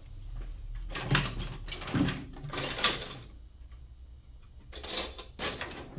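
Tools and small metal parts clattering and scraping as they are handled and rummaged through, in two spells of a couple of seconds each.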